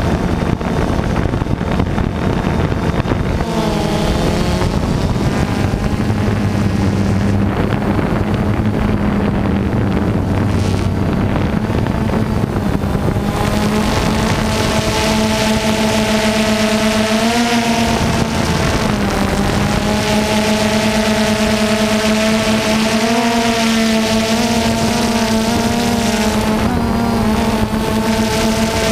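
DJI Phantom 2 quadcopter's electric motors and propellers running in flight, heard close up from the camera mounted on the drone: a loud steady buzzing drone mixed with wind rush. Its hum wavers up and down in pitch several times as the rotors change speed.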